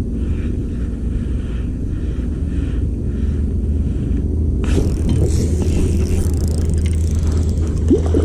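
Steady low rumble of wind buffeting the microphone, turning louder and hissier about halfway through.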